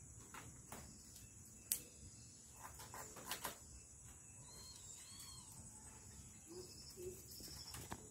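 Faint taps and light clicks of a thin wooden stick on a concrete floor as a kitten pounces on and bats it, the sharpest tap about two seconds in and a few more around the middle, over a steady high-pitched drone. A few faint short chirps in the second half.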